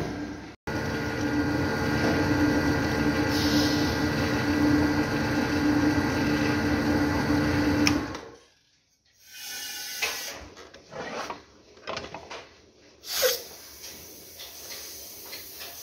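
Plastic blow-moulding machine's motor running with a steady hum that cuts off about eight seconds in. Then come scattered metal clanks from the mould being handled and clamped, and one sharp hiss a few seconds later.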